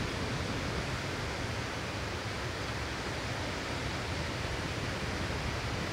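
Steady rushing hiss of water from a tall fountain jet falling and spraying, even throughout with no changes.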